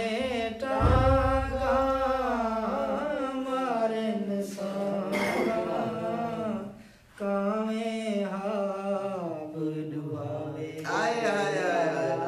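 A man singing Saraiki poetry in tarannum, the melodic style of reciting verse. A single voice draws out long, wavering notes, with a short pause about seven seconds in. There is a low thud about a second in.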